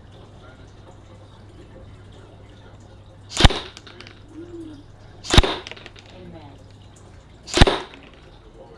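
Three single shots from a Specna Arms M4 electric airsoft rifle, each a sharp crack with a short rattling tail, about two seconds apart.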